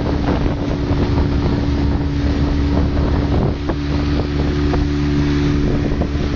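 Motorboat engine running steadily at speed, with wind buffeting the microphone.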